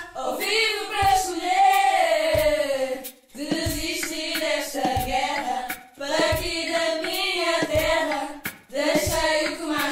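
A group of young voices singing an improvised chant together, in phrases with short breaks between them, over a steady beat of low knocks a little faster than one a second.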